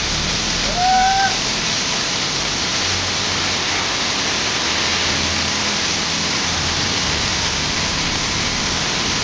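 Waterfall: a steady, full rush of falling water. About a second in, a short pitched call rises and then holds briefly over it.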